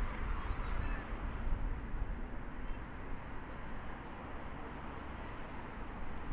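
Steady road traffic noise from cars driving along a busy city street: an even, low rumble.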